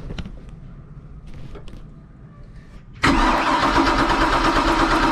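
Volvo Penta 5.7 GSi V8 being cranked by its starter, a loud steady whirring that starts suddenly about three seconds in, after a few faint clicks, and does not catch. The engine is getting hardly any fuel through its throttle body, which the mechanic puts down to either a bad low-pressure fuel pump or no fuel being pulled from the tank.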